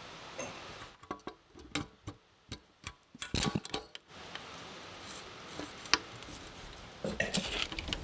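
Sharp metallic clicks and knocks as a red air tool's Teflon-taped fitting is handled and pushed into a brass quick coupler on an air compressor. There are several clicks in the first half and a louder cluster near the end.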